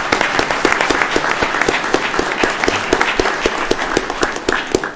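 Audience applauding, a dense patter of many hands clapping, tapering off near the end.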